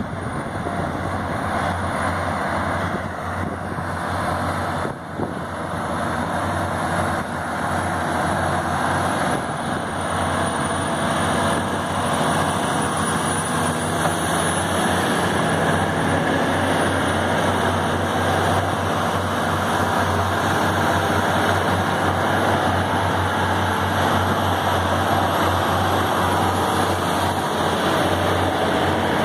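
Heavy diesel truck engines running steadily: a constant low drone under a broad rush of engine and road noise.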